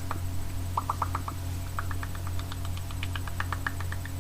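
A man's lips making kissing smacks, as a mouth-made kissing sound effect: many short smacks in quick runs. A steady mains hum lies underneath.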